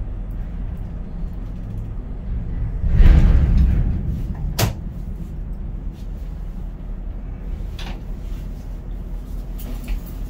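Steady low drone of a container crane's machinery heard inside the operator cab, swelling into a louder rumble about three seconds in. A sharp click follows a second later, with a few fainter clicks after it.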